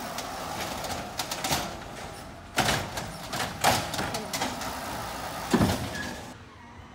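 Automated side-loader garbage truck emptying a trash cart: the engine runs under a string of sharp bangs and clatters as the lifted cart is shaken out over the hopper, the loudest about two and a half and five and a half seconds in.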